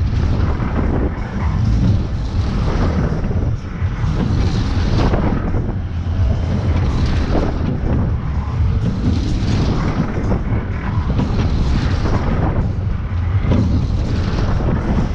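Wind rushing and rumbling over the microphone while riding a fast-spinning scrambler ride, swelling every second or two as the car whips round.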